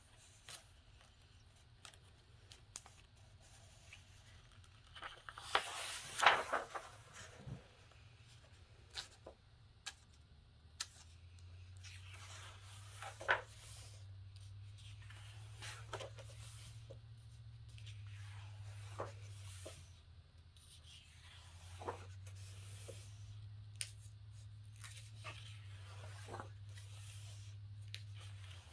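Pages of a paperback coloring book being flipped, with paper swishes and rustles at irregular intervals; the loudest comes a few seconds in. A low steady hum comes in about a third of the way through, with a short break past the middle.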